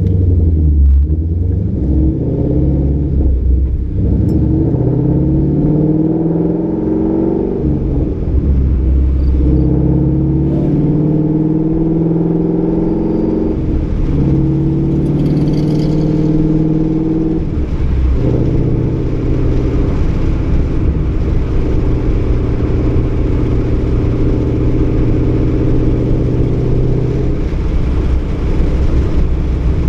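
Ford Mustang 5.0 V8 running through Roush axle-back mufflers and an off-road X-pipe, pulling hard. The engine note rises and drops with each upshift, about five times in the first eighteen seconds, then holds a steady drone while cruising.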